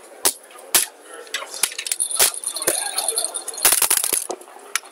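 Backgammon checkers clacking sharply as they are moved and stacked on the board, a few separate clacks, then a quick rattling run of clicks about three and a half seconds in.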